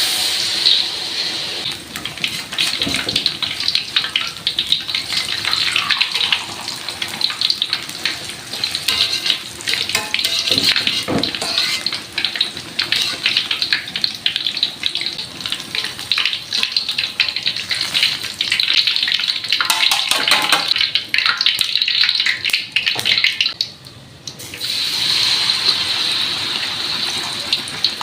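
Battered tempe mendoan deep-frying in hot oil, a steady dense sizzle full of small crackles. It dies down briefly about four seconds before the end, then picks up again.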